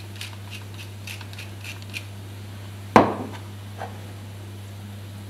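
Hand pepper mill grinding: a run of light clicks, about three a second, for the first two seconds. About three seconds in the mill is set down on the counter with a sharp knock, followed by a smaller knock, over a steady low hum.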